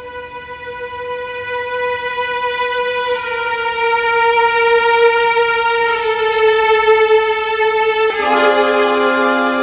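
Background film-score music: a violin-like line of long held notes that steps slowly downward and swells louder. About eight seconds in, a fuller chord with lower notes comes in.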